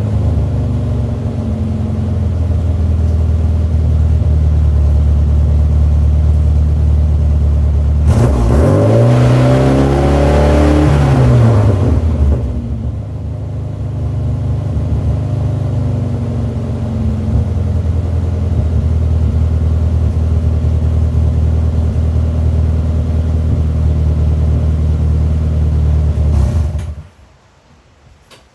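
Mini engine idling steadily with new vacuum elbows on the MAP sensor and air bypass sensor, the vacuum leaks cured. About a third of the way in it is revved once, the pitch rising and falling over a few seconds, then it settles back to idle and cuts off suddenly near the end.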